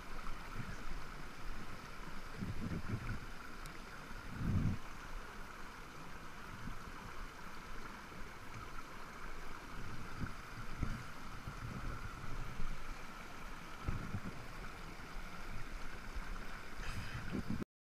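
Small mountain stream rushing steadily over rocks and a little cascade, with a few dull low thumps from the microphone of a body-worn camera.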